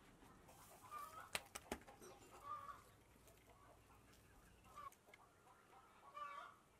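Faint short calls from poultry, four or five of them spread through, with two sharp knocks about a second and a half in.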